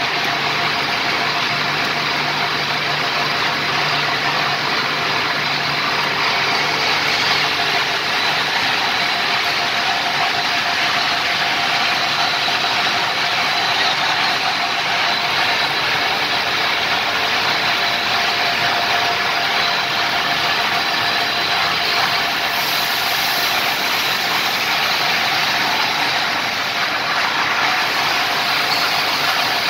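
Lohia tape plant, a plastic film and tape extrusion line, running: a loud, steady machine noise with a constant whine from its motors and rollers.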